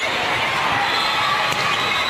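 Crowd cheering and shouting, a steady din of many voices.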